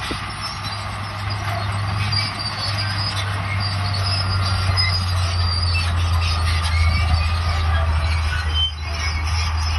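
Crawler bulldozer working: its diesel engine runs with a steady low drone while the steel tracks squeal and squeak.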